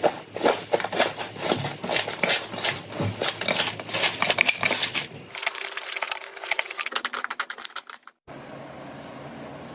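Slime being squeezed and worked by hand: a dense run of small crackles and pops that thins out after about five seconds. It cuts off abruptly near the end, giving way to a steady faint hiss.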